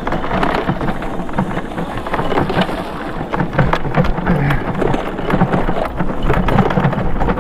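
Wind buffeting the microphone, with steady rattling and thumps from a Daymak e-bike riding over a bumpy grass trail.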